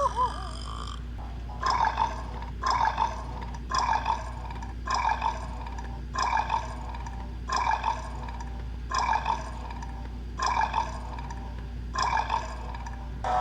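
Cartoon soundtrack: a short sound effect repeated about nine times at a steady pace, roughly once a second.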